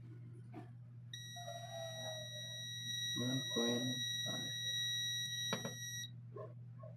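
ANENG M118A digital multimeter's continuity beeper giving one steady high beep for about five seconds, starting about a second in and cutting off near the end. The probes are bridging two commutator bars of a vacuum-cleaner motor armature, and the low reading shows the winding between those bars is connected.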